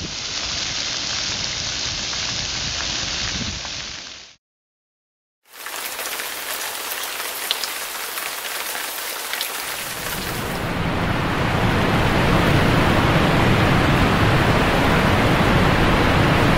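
Splash-pad water jets and an arch water curtain spraying and splashing onto wet concrete: a steady, rain-like hiss. The sound cuts out for about a second just after four seconds in, then returns and grows louder and fuller from about ten seconds in.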